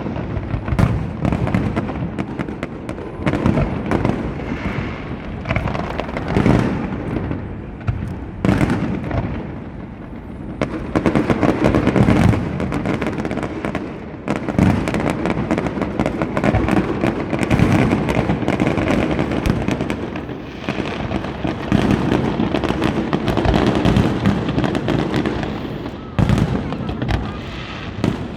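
Large fireworks display: aerial shells burst in a dense, continuous barrage of loud booms and crackles, the bangs coming many times a second and building into heavier volleys in the second half.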